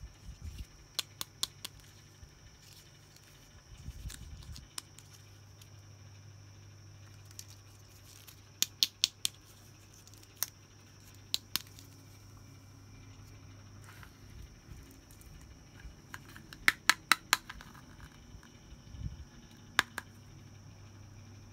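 Sharp clicks and taps of small toy playset pieces being handled, some alone and some in quick runs of three to six, over a faint steady low hum.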